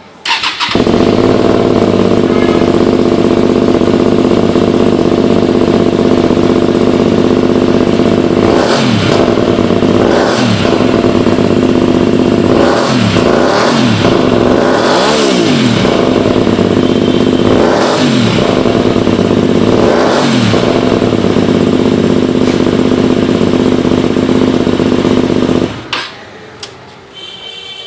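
Hyosung GV250's V-twin engine idling loud through a custom-made exhaust, the throttle blipped about seven times in quick revs that rise and fall. The engine sound stops abruptly near the end.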